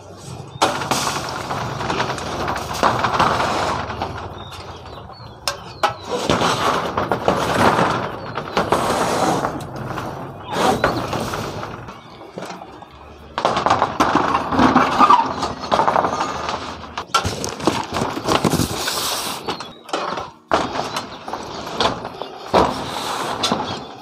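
Metal handling noise: scraping, rattling and clanking as a large mesh satellite dish, its pole and cables are lifted and pushed across a corrugated metal roof. It comes in irregular bursts a few seconds long with short pauses between.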